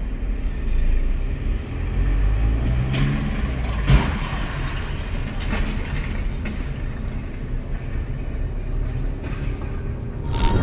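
Low engine and road rumble inside a car's cabin, with a single sharp knock about four seconds in.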